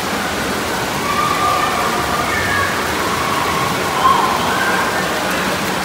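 Steady rush of churning water in a water park pool, with faint voices in the background.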